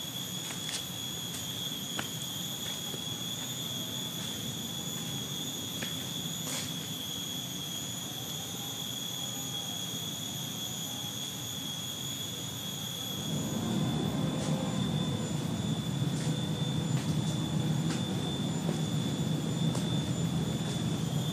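Cicadas droning steadily at a high, unbroken pitch, with occasional footsteps on the trail. About two-thirds of the way in, a low rumbling noise rises and continues under the drone.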